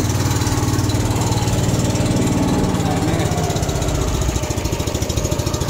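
Small single-cylinder engine of a river car-ferry raft running steadily with a fast, even chug, easing off about four seconds in.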